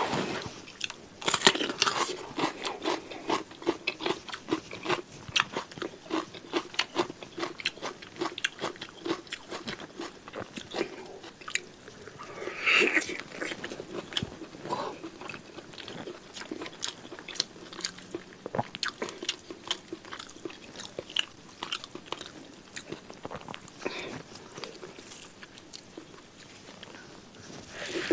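A person eating close to the microphone: chewing a meal of rice and beef tongue in torch-ginger (kecombrang) sambal, with a steady run of crunches and mouth clicks. There is a louder burst of crunching about thirteen seconds in.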